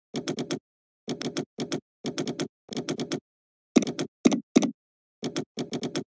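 Computer keyboard being typed on, keystrokes clicking in quick runs with short pauses between. About four seconds in come three louder strokes.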